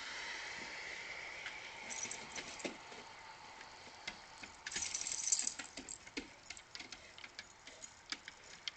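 Light, irregular jingling and clicking, like a dog's collar tags as it moves about, with a short rustle about five seconds in.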